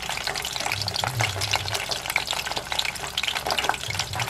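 Cheese sticks in thin wrappers deep-frying in a small pot of hot oil: a steady crackling sizzle of many small pops.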